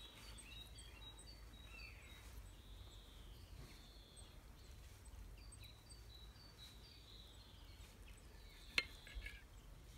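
Quiet outdoor background with faint birdsong: short high chirps and a few downward-sliding notes. A sharp click near the end, with a couple of softer ones after it, from cutlery on a plate as a steak is cut.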